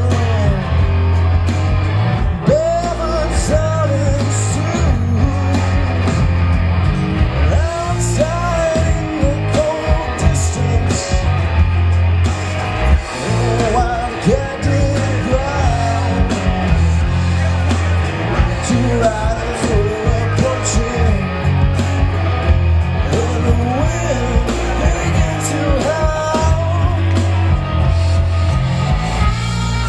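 Live band playing rock music: electric guitars, keyboards, drums and a heavy steady bass, with a voice singing over it.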